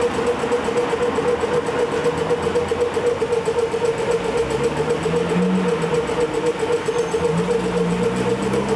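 Idling vehicles in stopped street traffic: a steady mechanical hum with a fast, even pulse.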